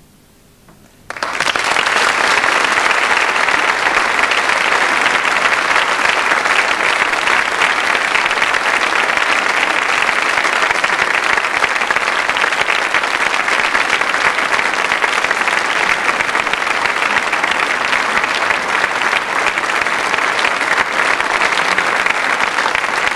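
Audience applause breaks out suddenly about a second in after a moment of quiet and carries on steadily.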